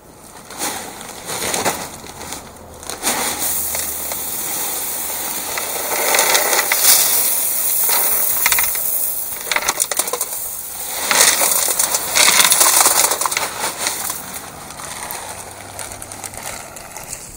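Drainage rock poured from a bag into the hole around a sump basin: a rattling hiss of small stones that comes in several surges, heaviest about halfway through and again about two-thirds in.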